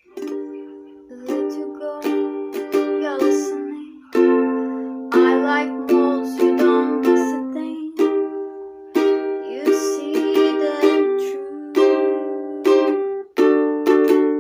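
Ukulele playing a song's instrumental introduction: plucked and strummed chords, each struck and left ringing, changing every second or so.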